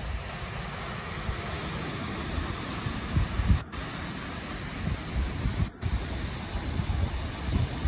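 Wind buffeting a phone microphone in uneven gusts, over the steady rush of surf breaking below.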